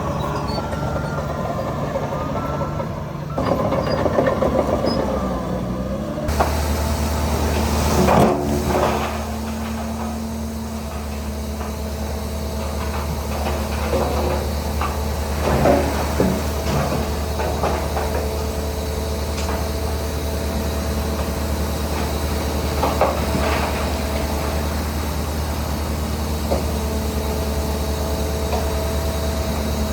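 Heavy diesel earthmoving machinery at work: a steady low engine drone with scattered metallic clanks and squeaks. The engine sound changes abruptly about six seconds in.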